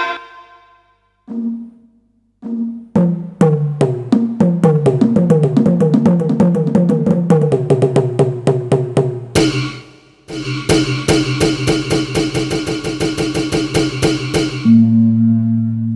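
Drum and percussion samples triggered on an Avatar PD-705 electronic percussion pad. A few separate hits come first, then a fast run of tuned drum hits stepping down in pitch. A rapid even roll of a bright percussive sound follows, and a held low tone ends it.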